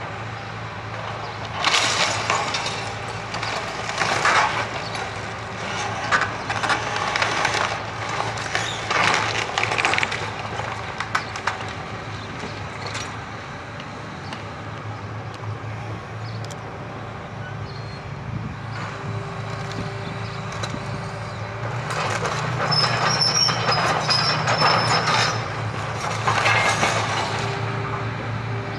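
Hitachi Zaxis excavator's diesel engine running steadily while its demolition grab crushes and breaks timber and rubble, giving loud irregular crashes and cracks in the first ten seconds and again in a louder stretch after about twenty seconds.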